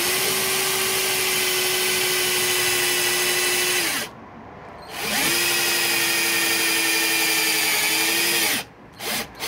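Cordless drill-driver running in two steady runs of about four seconds each, with a pause between them, driving bolts through the plastic flange of a washing machine's outer tub into hand-held nuts. The motor's pitch drops off at the end of each run. Two brief trigger blips follow near the end.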